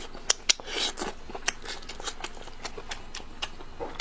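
Close-miked mouth sounds of chewing oily fish fat: irregular wet clicks and smacks, with a short hissing slurp just before a second in.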